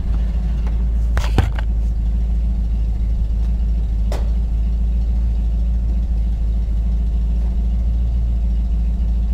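Car exhaust at a steady idle, a constant low rumble. A few short clicks come about a second in and one more near the middle.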